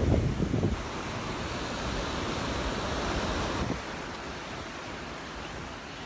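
Gulf surf breaking and washing up the shore, a steady hiss that swells and then drops away suddenly a little past halfway. Wind buffets the microphone with a low rumble in the first second.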